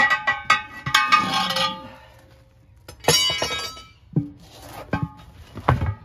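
Steel tire irons clanking against the wheel: a burst of sharp metal clinks with a ringing tail at the start, another ringing clang about three seconds in, and a couple of dull thumps near the end.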